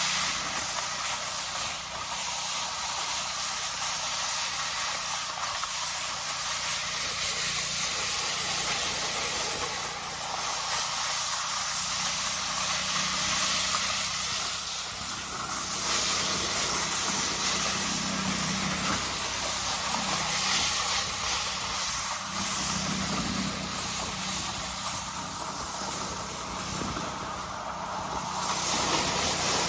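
A vehicle driving: a steady hiss over a low engine drone that swells slightly now and then.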